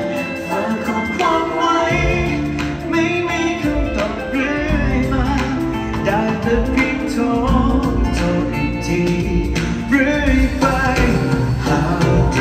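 Live pop song over an arena sound system: a male singer with a backing band, the heavy bass and beat coming in about two seconds in.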